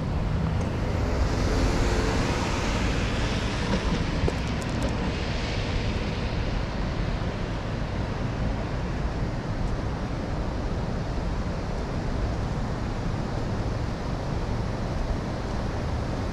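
Street ambience: traffic on the road alongside and wind on the microphone, a steady rumbling hiss that swells over the first few seconds and then settles.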